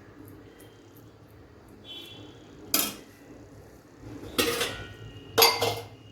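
Stainless-steel idli plates and idli pot clanking as they are handled: one sharp clank nearly 3 seconds in, then clattering knocks about 4.5 and 5.5 seconds in.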